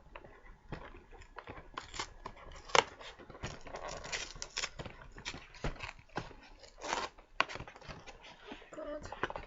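Macaron box and packet being opened by hand: crinkling and tearing of packaging with scattered clicks, and one sharp snap about three seconds in.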